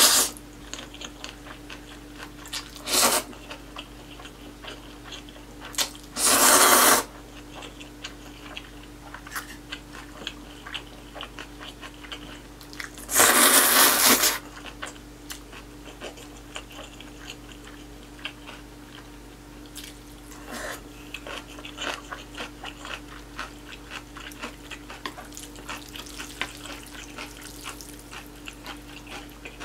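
Close-miked eating of spicy cold noodles with beef brisket: three loud slurps of noodles, one short, one about a second long and one longer near the middle, with wet chewing and small mouth clicks in between.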